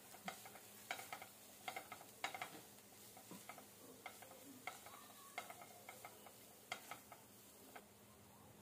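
Silicone spatula stirring and scraping onions and spices around a nonstick kadai, in faint strokes about every 0.7 seconds that thin out near the end.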